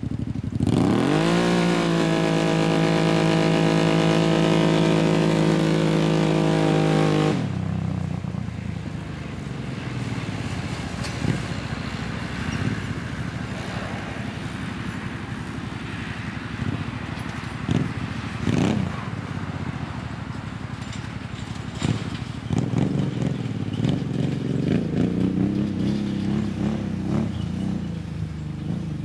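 Kawasaki Teryx V-twin engine through a Two Brothers exhaust, jetted to suit it. It revs up sharply and is held at high revs for about seven seconds, then drops to lower, uneven running with short throttle blips, and builds up again near the end.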